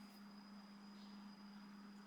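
Near silence: room tone with a steady low hum and a faint steady high tone.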